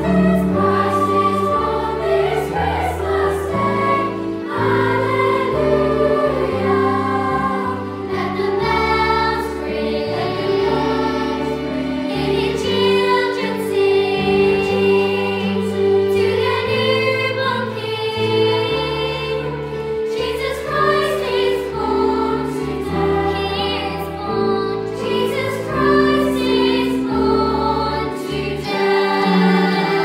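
A choir singing a Christmas carol over an instrumental accompaniment, with a bass line stepping between held notes.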